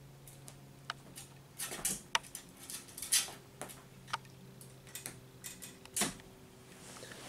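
A kitten clambering over a padded metal folding chair: scattered scratches of claws on the fabric seat with light taps and knocks, the loudest about two, three and six seconds in, over a faint steady hum.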